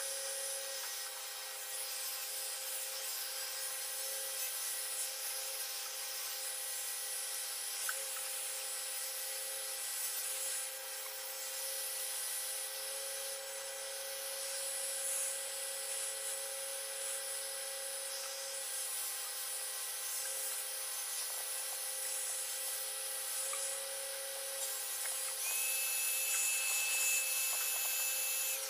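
Hot air gun running steadily: a motor hum with a few steady tones over the hiss of blown air. A thin high whistle joins in a few seconds before the end.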